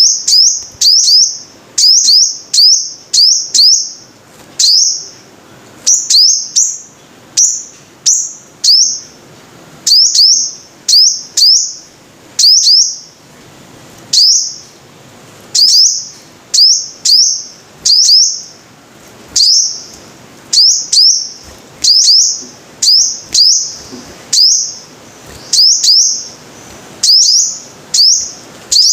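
Sunbird calls: sharp, high, very short chirps, each a quick sweep, repeated in tight clusters of two or three roughly every second without pause.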